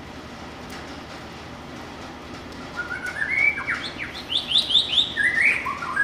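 Wild white-rumped shama singing: about three seconds in, a fast run of clear whistled notes, each sweeping up or down, starts over a steady background hiss and carries on.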